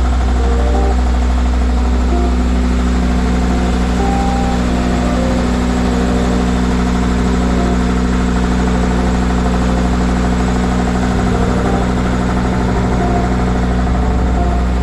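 Spray foam rig's Isuzu diesel generator running steadily, a loud, even low hum.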